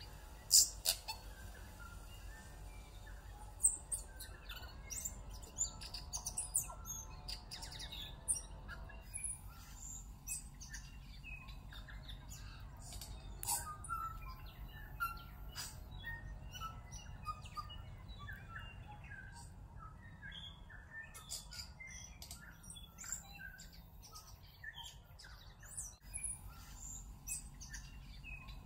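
Several songbirds chirping and calling in short, scattered notes, with a steady low hum underneath.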